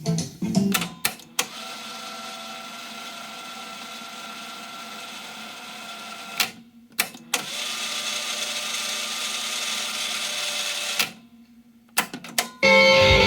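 Sony TC-K61 cassette deck transport being worked between tracks: sharp solenoid clicks as the buttons are pressed, and a steady whirr of the tape winding at speed that runs for about five seconds, stops with clicks, then runs again for about three seconds. Music resumes near the end.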